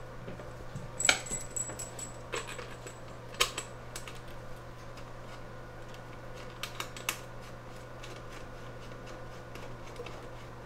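Scattered sharp clicks and light knocks of hands handling a CB radio and fitting a coax cable to it, most of them in the first four seconds and a short cluster near seven seconds, over a steady low hum.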